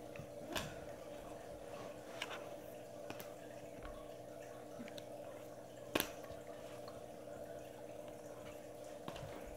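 A few light, sharp clicks and taps from trading cards being handled and set down on a stone countertop, the loudest about six seconds in, over a steady low room hum.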